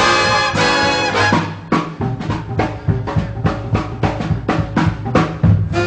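Background music of brass and drums: held brass chords, then after about a second and a half a run of quick, even drum strokes, about four a second, under the brass.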